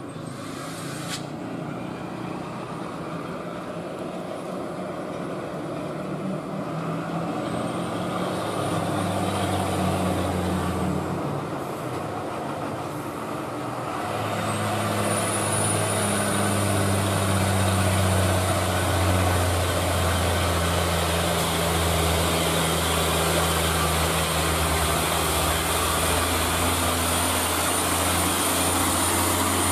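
Diesel engine of a rock-laden Hino 500 dump truck pulling hard up a steep climb: a steady low drone with a thin high whistle over it, louder from about halfway in.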